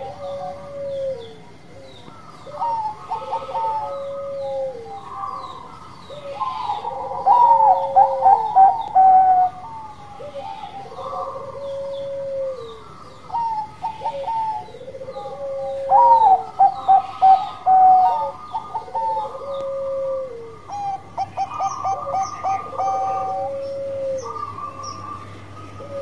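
Zebra dove (perkutut) cooing in its 'bekur' song. A low coo repeats about every second and a half, overlapped by runs of quick staccato notes that grow loudest twice, about seven and sixteen seconds in.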